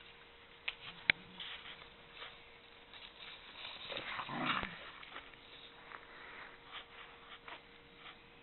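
Whippet puppies play-fighting, with one short dog vocalisation a little past the middle, the loudest sound here. There are two sharp knocks about a second in and light scuffling throughout.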